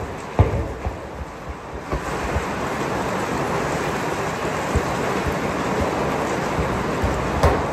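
A football thumps off a foot in the first second, with a few lighter knocks later. From about two seconds in, a steady rushing of heavy rain on the hall's roof takes over.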